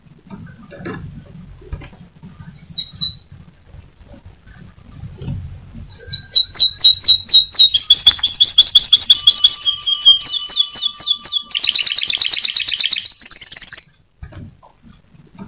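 Domestic canary singing: a short run of repeated notes about two and a half seconds in, then from about six seconds a long, loud song of rapid trills and rolls, ending in a dense buzzy roll that stops abruptly near the end.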